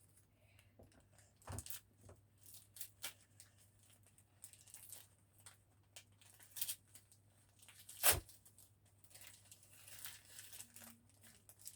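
Packaging being torn open and crinkled by hand: faint scattered tearing and crackling, with one sharp click about eight seconds in.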